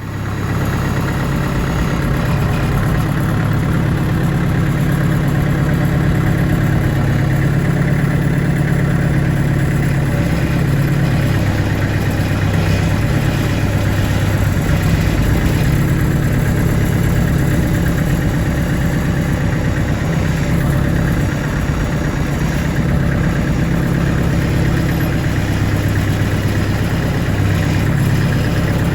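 An engine running steadily at a constant speed, cutting in suddenly at the start.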